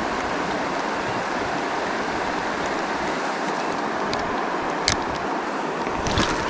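Steady rushing of river water, with a sharp click about five seconds in and a few more clicks near the end.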